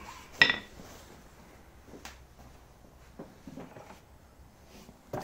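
A single sharp metallic clank about half a second in, then a few faint knocks and rustles of parts and packaging being handled.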